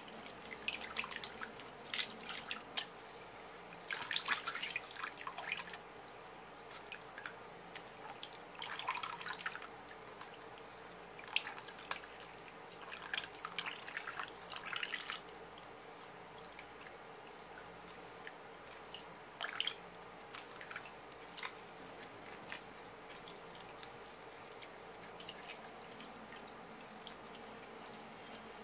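Water dripping and splashing into a stainless steel bowl as wet pieces of pufferfish are lifted and handled over it, in irregular bursts of drips and small splashes.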